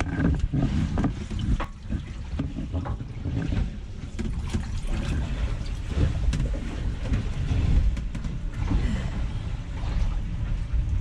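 Seawater trickling and streaming in through a crack in a fiberglass sailboat's hull, a leak that a tape patch is failing to hold back, with occasional knocks.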